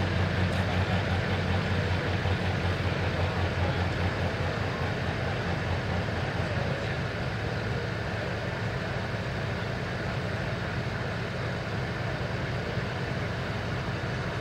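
Diesel engine of a John Deere super/pro stock pulling tractor idling steadily.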